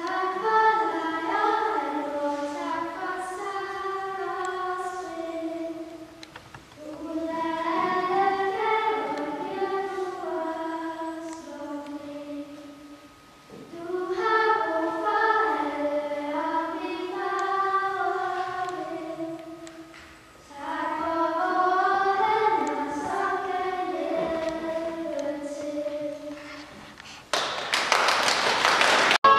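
A group of young voices singing a song without accompaniment, in four phrases with short pauses between them. Near the end the singing gives way to a loud burst of noise.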